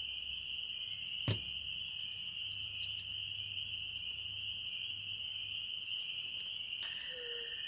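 Crickets singing outside at night, an unbroken high, even chorus. A single sharp click sounds about a second in.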